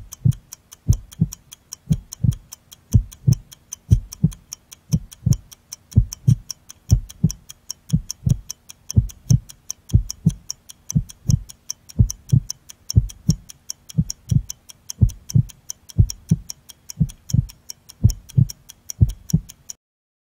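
Heartbeat sound effect, a deep double thump about once a second, under rapid clock ticking. Both stop suddenly near the end.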